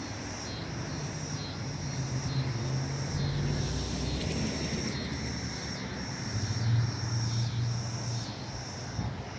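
Insects chirping in a steady high-pitched chorus that pulses about twice a second, over a low engine hum that swells and fades.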